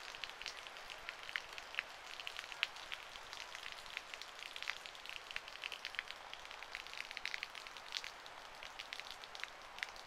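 Rain falling, with frequent irregular sharp ticks of drops striking close to the microphone over a steady hiss.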